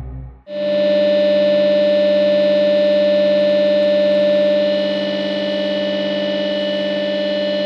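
Score music: a loud synthesizer drone holding one unchanging chord. It comes in abruptly about half a second in and drops slightly in level a little past the middle.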